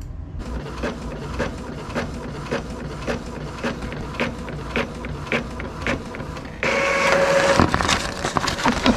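Epson inkjet printer printing a page, its mechanism clicking about twice a second, then a louder steady whir for about a second near the end as the printed sheet is fed out.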